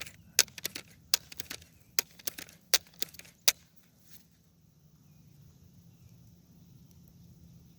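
BB gun being handled and readied between shots: a quick, irregular run of sharp mechanical clicks and rattles, then quiet.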